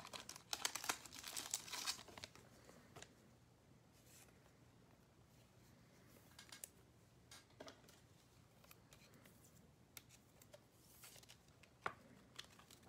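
Plastic card sleeve and holder being handled as a trading card is slipped in: a short spell of crinkling and rustling in the first two seconds, then faint scattered clicks and taps.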